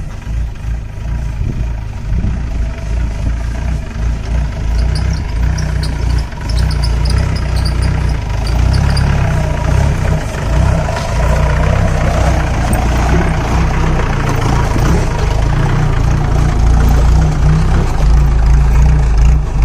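A 4x4 jeep's engine running steadily at low speed as it crawls over a rough, stony off-road track, getting somewhat louder in the last few seconds.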